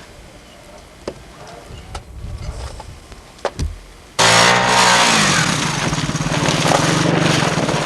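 A car engine and wind noise cut in suddenly and loudly about four seconds in. The engine's pitch drops, then holds steady, as a car drives by on a snow-covered road. Before that there are only faint scattered clicks.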